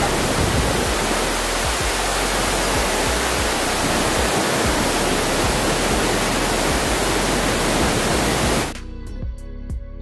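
Tat Pha Je Laet waterfall: the steady, loud rush of falling water close by. About nine seconds in it cuts off suddenly, and background music with picked notes takes over.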